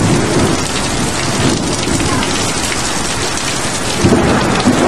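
Heavy rain pouring down steadily in a thunderstorm, with a low rumble of thunder underneath.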